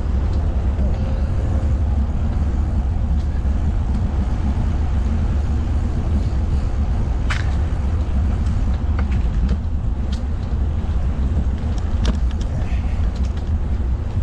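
Wind buffeting the microphone while riding a bike, a steady low rumble, with a few sharp clicks from the bike. The loudest click comes about seven seconds in.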